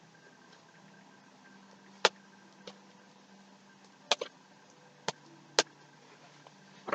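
Fluffy slime being worked in the hands, giving off about six sharp separate clicks and pops spread irregularly through the stretch.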